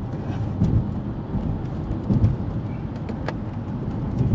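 Steady road and engine noise inside a moving car's cabin, with a couple of low thumps and a brief click.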